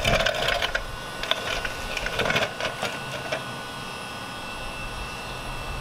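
Microfiber towel rubbing across a car's painted door panel wet with waterless wash, in two scratchy wiping strokes that stop a little over three seconds in.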